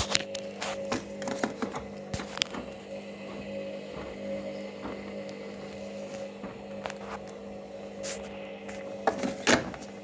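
Hoover front-loading washing machine running a wash cycle, giving a steady motor hum with scattered clicks and knocks; the loudest knocks come near the end.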